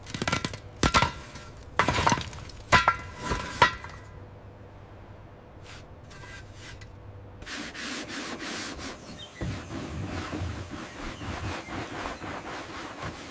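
Several sharp clanks with a brief metallic ring in the first few seconds, then after a lull a steady run of rapid scraping, like hand tools working on metal parts.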